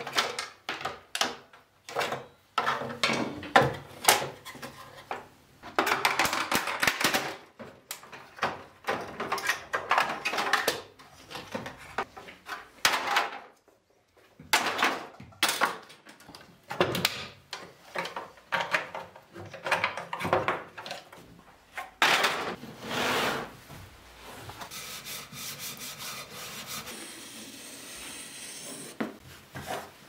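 Plastic housing of a household vacuum cleaner being pried apart and handled on a wooden workbench: a string of clicks and knocks of hard plastic parts, with a few longer stretches of rubbing and scraping.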